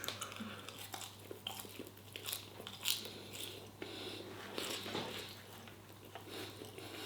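A man chewing a mouthful of spicy chicken and rice close to the microphone, with irregular small wet clicks and crunches. A faint steady low hum runs underneath.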